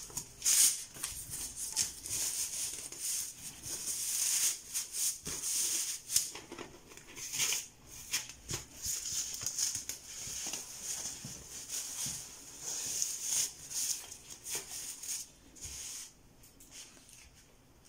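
Rustling and scratching as hands stretch and smooth a black stretch wig cap over a foam mannequin head, fabric rubbing against the foam. The rustling stops about sixteen seconds in.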